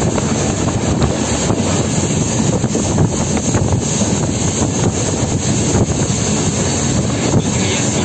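Passenger train running at speed, heard from inside the coach at an open window: a steady rumble of wheels on the track mixed with wind rushing past the microphone.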